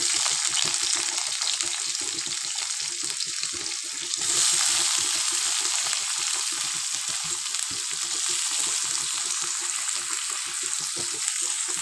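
Sliced onions sizzling in hot oil in a steel kadai, a steady frying hiss that grows louder about four seconds in.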